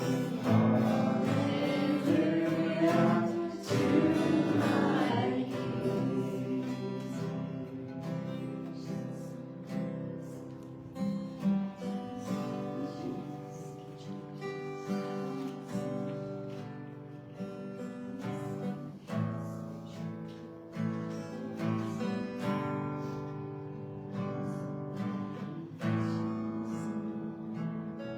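Worship song: voices singing over acoustic guitar. The singing fades out about five or six seconds in, and the guitar carries on strumming chords.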